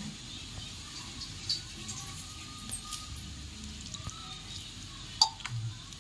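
Water poured into a steel mixer jar of grated coconut and cashews, with small clicks and one sharp click about five seconds in. Faint chirps sound in the background.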